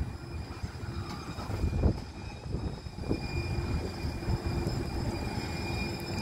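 Siemens S200 light rail car rolling slowly into a station platform: a low rumble of wheels on rail with a couple of knocks, and a steady hum that comes in about halfway through.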